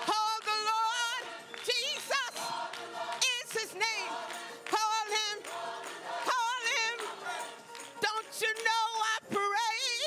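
Gospel choir singing, with a woman's lead voice in front, its pitch wavering in a wide vibrato through a series of sung phrases.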